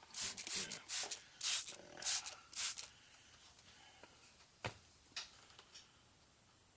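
Trigger spray bottle squirting soapy water onto a pneumatic pop rivet gun in about six quick hissing squirts over the first three seconds: a leak test for escaping air. A sharp click follows about halfway through, then a couple of fainter clicks.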